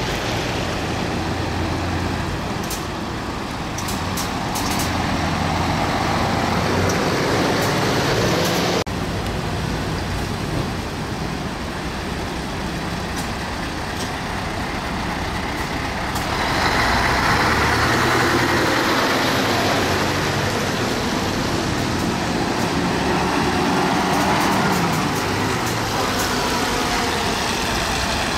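Military diesel trucks driving past one after another on a wet road, their engines running under tyre and road noise. The noise grows louder a little past halfway through as a truck passes close by.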